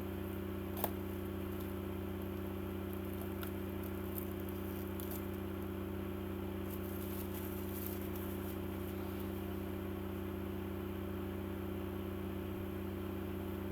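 A steady low machine hum, with one faint click about a second in and a few light ticks.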